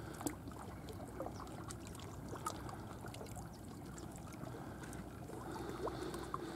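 Faint, steady outdoor background noise by the water, with scattered light clicks and ticks.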